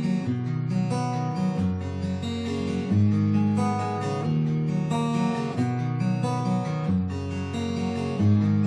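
Background music: strummed acoustic guitar chords over a steady bass line, the chords changing every second or so.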